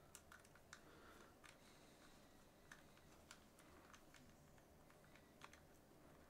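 Faint, irregular light clicks and taps of small metal parts and an Allen key being handled while a baitcasting reel is taken apart, over near-silent room tone.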